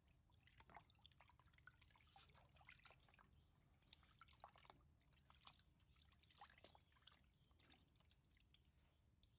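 Near silence, with faint, scattered small clicks and ticks.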